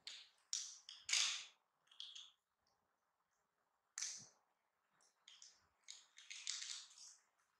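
Crisp snack chips crackling and crunching in short bursts as baby monkeys pick them off a plastic plate and bite into them, loudest about a second in, with a denser run of crunches near the end.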